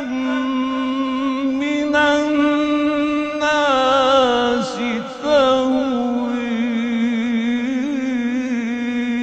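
Male Qur'an reciter in the melodic mujawwad style, drawing out a long melismatic note on a sustained vowel, with wavering ornamental turns in the middle.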